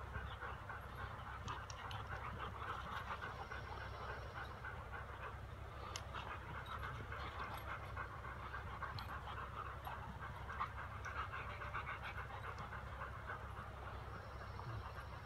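German Shepherd dogs panting hard during rough play, with a few brief sharp clicks scattered through.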